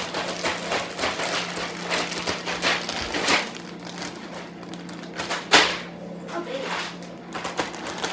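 Zip-top plastic bag of milk, sugar, salt and ice being shaken hard: irregular crinkling of plastic and ice shifting inside, with one sharp knock about five and a half seconds in, over a steady low hum.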